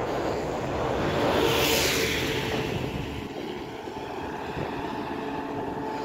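A motor vehicle passing on the road: its noise swells and fades over the first couple of seconds. A steady engine drone sets in and holds, with wind buffeting the microphone.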